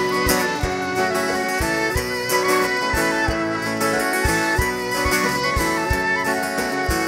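Live band playing an instrumental passage: a violin carries the melody over acoustic guitar and accordion, with a steady drum beat underneath.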